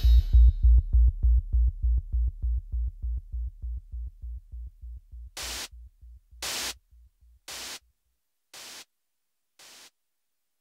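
Experimental electronic noise music: a low pulse repeats about four or five times a second and slowly fades away. From about five seconds in, short bursts of hiss come about once a second, each quieter than the one before.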